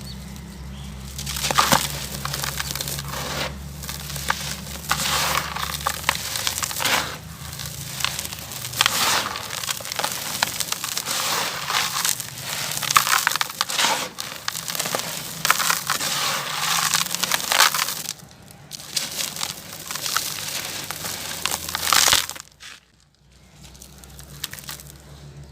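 Gritty, crunchy heart-shaped pieces being crushed and crumbled: a dense, continuous run of crackling crunches that drops to a much quieter stretch near the end.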